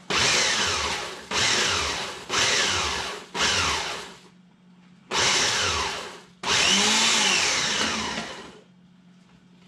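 Small countertop food processor pulsed six times in bursts of about a second each, chopping jalapeño peppers into little chunks. The motor's whine drops in pitch through each burst.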